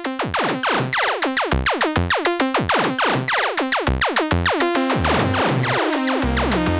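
Erica Synths Perkons Voice eurorack percussion module played in its 4-voice poly overlap mode: a fast run of pitched electronic hits, about five a second, each falling in pitch and ringing into the next. Deep bass hits come in over the second half.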